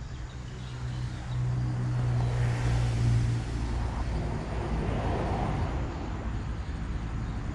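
A motor vehicle passing on the road beside the swamp: a low engine hum that swells over the first few seconds, is loudest around the middle, then eases off slightly.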